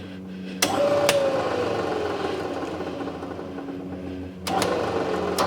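Metal lathe running slowly in low range while power-tapping a hole in steel rod. A sharp click about half a second in is followed by a motor whine that drops slowly in pitch over several seconds. Another click comes near the end.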